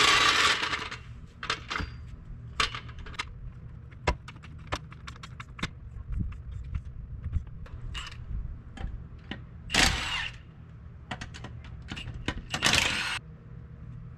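Scattered metal clicks and clinks from a floor jack and hand tools at a car's front wheel, with short bursts of hissing noise at the start, about ten seconds in, and near the end.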